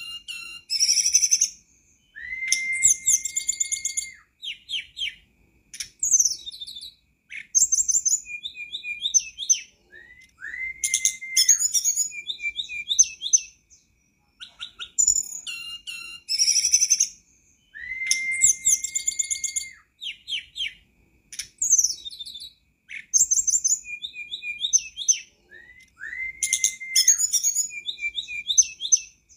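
Hill blue flycatcher (tledekan gunung) singing: bright whistled phrases mixed with quick twittering trills. Each sequence opens with a long held whistle that rises into a level note, and the same sequence repeats about every eight seconds.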